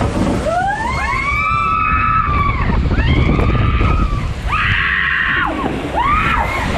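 Riders screaming on an amusement park thrill ride: one long scream after another, rising and falling in pitch and sometimes overlapping, over a steady low rumble.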